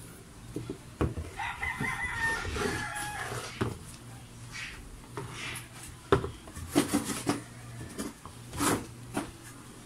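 A rooster crows once, starting about a second in. Later come several sharp knocks as cups and a glass bottle are set down on a table.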